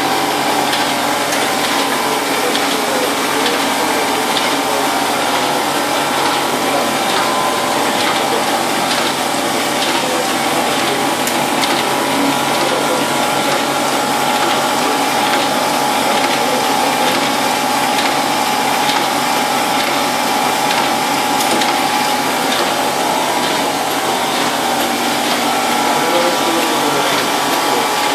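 Solna 125 sheet-fed offset printing press running at a steady pace: a constant mechanical running noise with several steady hum tones and faint scattered ticks.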